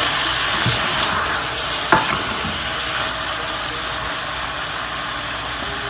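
Shrimp sizzling as they sauté in butter and olive oil in a stainless steel pan, stirred with a spatula; a couple of clicks of the spatula against the pan, the sharper one about two seconds in.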